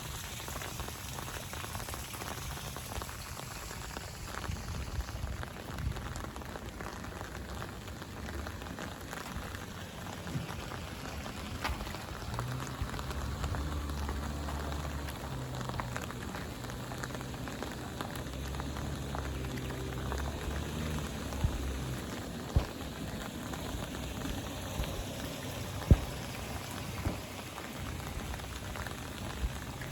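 Steady rain falling, with scattered sharp drop ticks and a few louder drips near the end. A low hum joins in from about twelve seconds in and fades out around twenty-one seconds.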